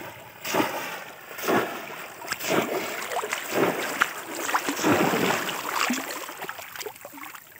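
Shallow floodwater splashing and surging as a bamboo fish trap is swept back and forth through it. It comes in repeated rushes about once a second and dies down near the end.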